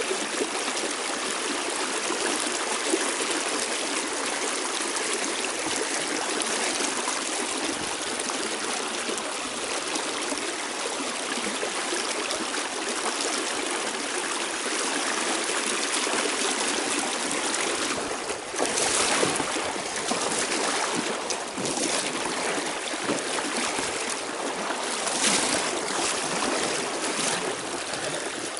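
Shallow, fast river current rushing steadily over stones close by, briefly louder twice in the second half.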